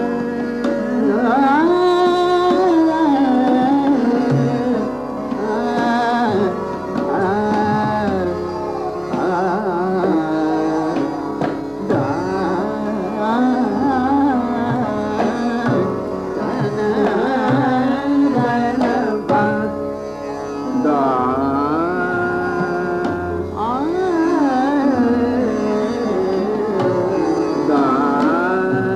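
Indian classical music: a melody sliding between notes over a steady drone.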